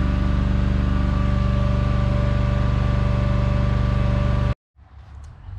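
A machine running steadily with an even, low-pitched hum that cuts off suddenly about four and a half seconds in, leaving only faint room sound.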